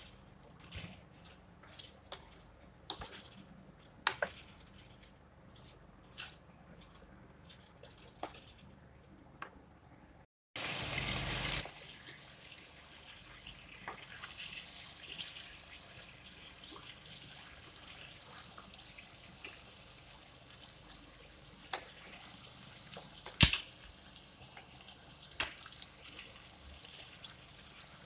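Potatoes and chicken wings frying in masala in a nonstick pan, with a steady sizzle. A wooden spatula scrapes and knocks against the pan in sharp clicks, about once a second at first and a few loud knocks later on. About ten seconds in there is a second-long burst of loud noise.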